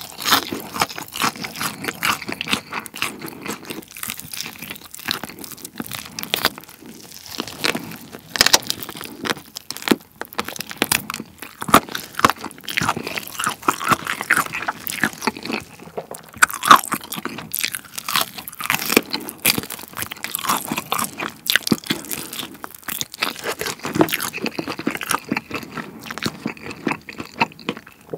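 Close-miked crunching, biting and chewing of crispy fried chicken coated in spicy cheese powder, with many irregular crackles from the crust.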